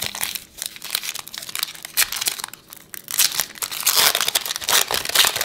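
Foil wrapper of a Donruss Optic basketball card pack crinkling and tearing as it is pulled open by hand, with the crackling getting louder in the second half.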